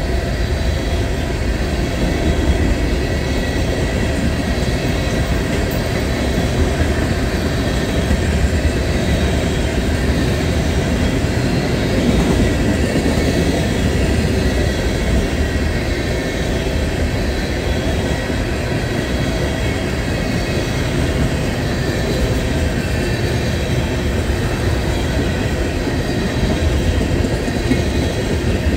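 Tank cars of a CSX freight train rolling past at speed: a steady, loud rumble of steel wheels on the rails with continuous wheel clatter, unbroken throughout.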